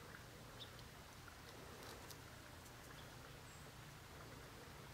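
Near silence in the woods: faint steady hiss and low hum with a few scattered tiny clicks.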